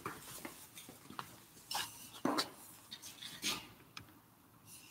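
Handling noise close to the microphone: cloth rustling and rubbing against the recording device, with several short clicks and knocks.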